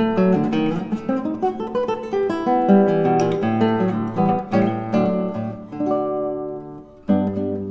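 Solo classical guitar playing a Brazilian choro, a plucked melody over bass notes. Near the end a note is left to ring and fade almost away before the playing picks up again.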